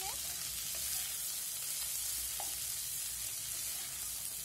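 Onions, green chillies and chopped vegetables frying in oil in a non-stick kadhai with a steady, faint sizzle while a spatula stirs them, with a few light scrapes and taps.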